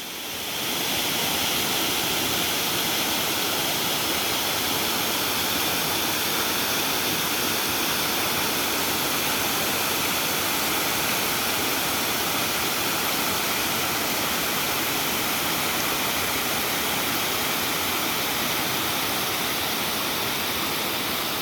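A swift creek and small waterfall rushing steadily.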